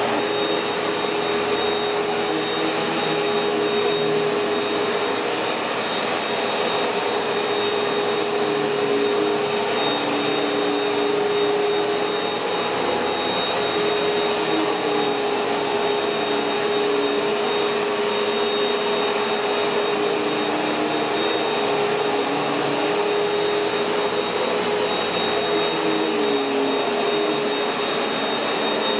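Panasonic MC-UG471 bagged upright vacuum cleaner running steadily, a continuous motor whine with a constant hum and a faint high tone over the rush of air.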